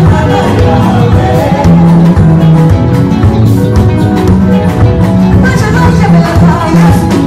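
Live gospel band playing loud, upbeat dance music, led by a plucked bass line and guitar. A woman's singing voice comes in over the band near the end.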